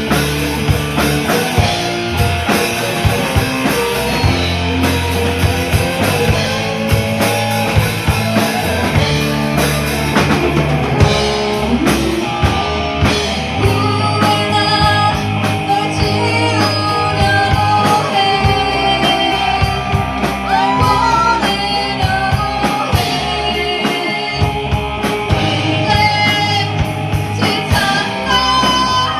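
Live rock band playing a song: drum kit, bass and electric guitar, with a melody line that bends in pitch over the band.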